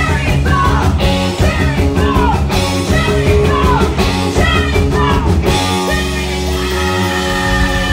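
Live rock band playing loud: a woman sings over electric guitar, bass and drums. About five and a half seconds in the singing stops and the band holds sustained chords.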